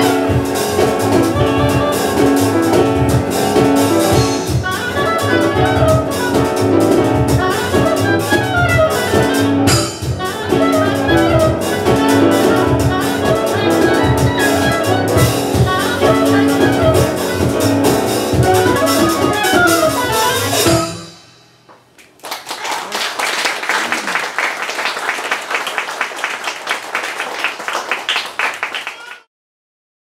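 Live jazz band of oboe, double bass, piano and percussion playing a fast up-tempo tune that stops about 21 seconds in. Audience applause follows and cuts off suddenly near the end.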